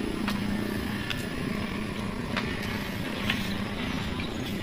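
Footsteps on a dirt path, about one faint tick a second, over a steady low hum.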